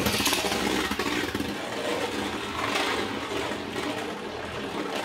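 Winning Valkyrie Beyblade spinning top racing around a plastic Beyblade stadium just after its launch: a steady whirring scrape of the spinning tip on the stadium floor that eases off a little over a few seconds.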